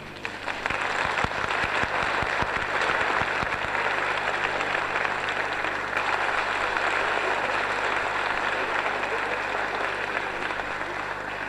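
Theatre audience applauding after a ballet number. Separate claps at first quickly fill in to steady, dense applause, which eases off slightly near the end.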